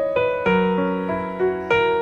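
Background music: a gentle piano melody, notes struck about every half second and fading.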